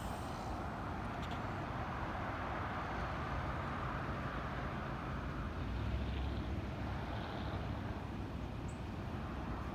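Steady low rumble of distant vehicles.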